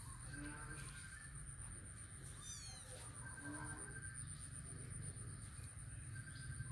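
Kittens mewing faintly: short weak meows about half a second in and again just after three seconds, over a steady high-pitched whine.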